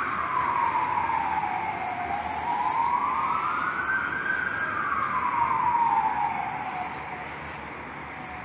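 Fire engine siren on a slow wail, its pitch falling, rising and falling again over a few seconds per sweep, dying away near the end.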